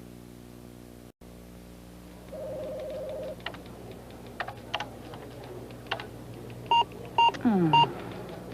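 Computer keyboard keys clicking irregularly over a steady low hum, with a one-second buzzy electronic tone before the typing and three short electronic beeps near the end, like a computer's error beeps.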